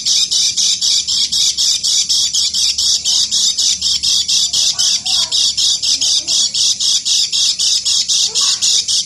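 White-eye (kecial kuning) singing its fast, unbroken 'ngeker' chatter: high, shrill notes pulsing evenly at about six a second.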